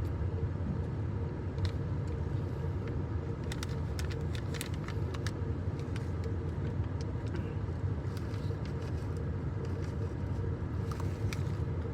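Steady low rumble, with a few faint clicks and taps scattered through it.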